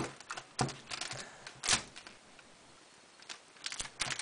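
Irregular light clicks and knocks as a long knife is pressed and worked down through a soft cake of cold-process soap, with a short quiet pause in the middle.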